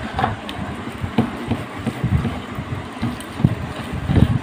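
Ripe palm fruit rubbed back and forth on a flat steel grater over a steel bowl to scrape out its pulp: irregular scraping strokes with dull knocks and a few sharper clicks.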